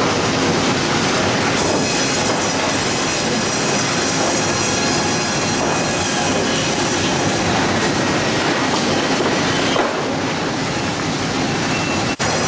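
Lumber mill conveyors and chain transfers running: a loud, steady clatter and rumble of machinery with a faint high whine over it. The noise breaks off for a moment near the end.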